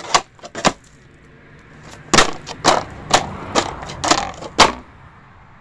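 Plastic snowboard slapping and scraping on asphalt as the rider presses and hops it: three quick knocks at the start, then after a short pause a run of about six sharp slaps roughly half a second apart.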